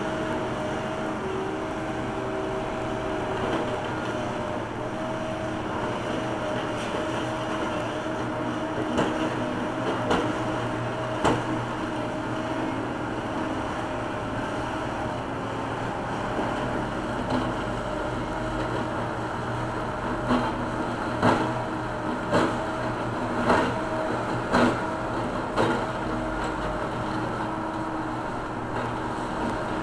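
John Deere backhoe loader's diesel engine running steadily with a steady whine, while it works. Sharp knocks and clanks come now and then, most often in the last third, about one a second.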